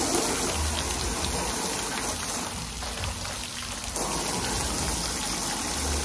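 Garden-hose water spraying and splashing onto a window air conditioner, rinsing bleach-loosened grime and mold out of the unit. The spray sound dips briefly about halfway through, then comes back.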